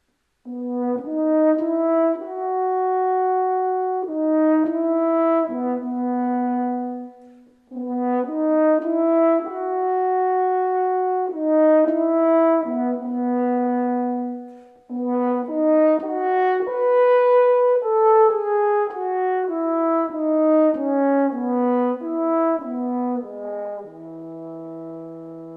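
French horn played solo and unaccompanied: a melody of sustained notes in three phrases with short breaths between them, the last phrase stepping down to a long held low note near the end.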